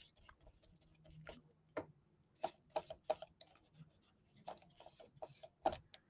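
Faint, irregular taps and dabs of a small brush pressing decoupage medium onto paper, working it down onto a wooden board.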